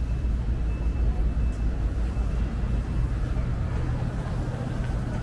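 Steady low rumble of city road traffic, with an engine hum that settles into a steady tone about three seconds in.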